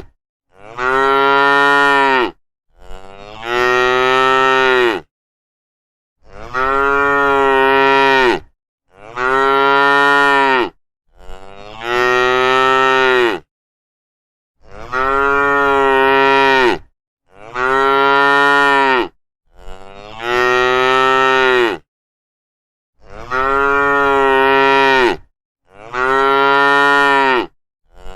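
Cow mooing: about eleven long, loud moos of roughly two seconds each, with dead silence between them. The same set of three moos repeats about every eight and a half seconds.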